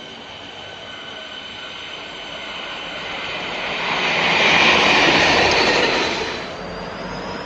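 A train passing close by: the rushing noise of wheels on rails builds, is loudest from about four to six seconds in, then falls away quickly.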